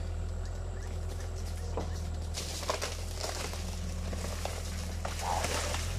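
Caterpillar 305.5E2 mini excavator's diesel engine running at a steady pitch, with irregular scraping, rustling noise from about two seconds in as it works soil.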